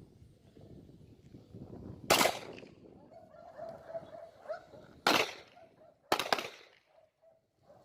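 Handgun shots fired in a drill: a single shot about 2 seconds in, another about 5 seconds in, then a quick pair about a second later, each a sharp crack with a short echo.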